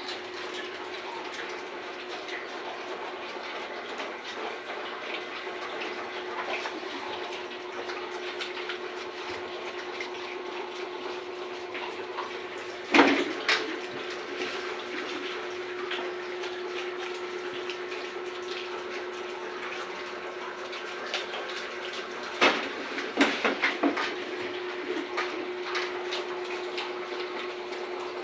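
Water running steadily, as from a tap or hose, with a steady hum under it. A sharp knock about halfway through and a few more knocks later on.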